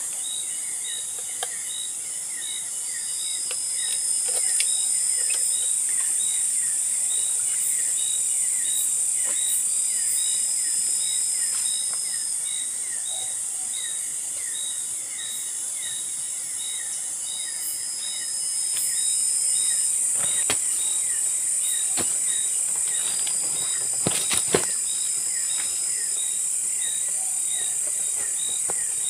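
Tropical forest insect chorus: a dense, high-pitched shrill that swells twice. Running through it are evenly spaced chirps about twice a second and a short whistle-like call about every seven seconds. A few faint knocks come in the second half.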